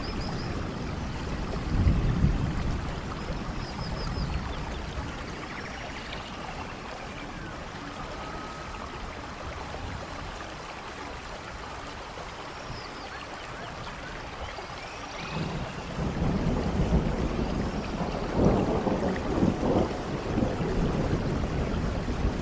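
Rainforest thunderstorm: steady heavy rain with rolling thunder, a rumble about two seconds in, then a longer, louder rumbling that builds from about two-thirds of the way through. Faint, short, high chirping calls sound now and then over the rain.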